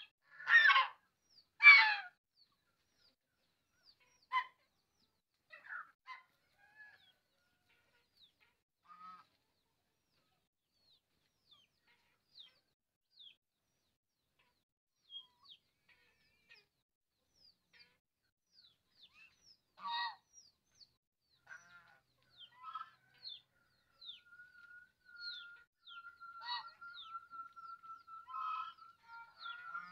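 Birds calling: a few loud, harsh calls in the first two seconds, then scattered short high chirps through the rest, joined later by a long steady high note.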